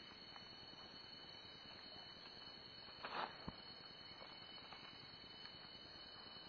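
Near silence: faint steady hiss with a thin, steady high-pitched tone. About three seconds in comes a brief rustle, followed by a single click.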